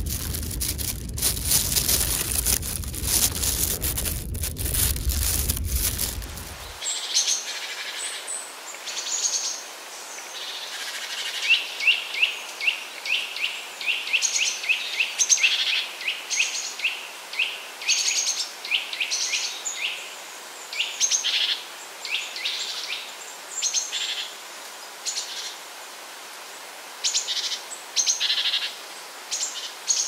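Plastic bag crinkling with wind and handling noise on the microphone for about the first seven seconds, cutting off abruptly; then small songbirds chirping and calling, with a quick run of repeated chirps in the middle.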